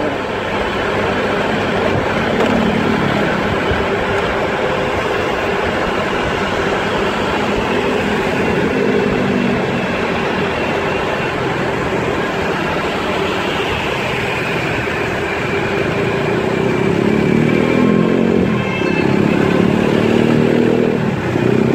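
Steady road noise from moving through city traffic, with vehicle engines running. An engine speeds up over the last few seconds.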